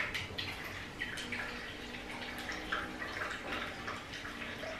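Water running and splashing from a washing machine's small emergency drain hose into a plastic bowl. The machine is being drained by hand because it will not spin, which the owner thinks is due to a clog that keeps it from pumping the water out.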